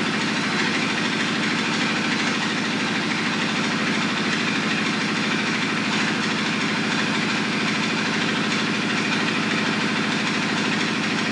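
Compressed air at 100 psi hissing steadily out of an open-center steering control valve held in neutral, over a motor running steadily with a low, rapidly pulsing hum.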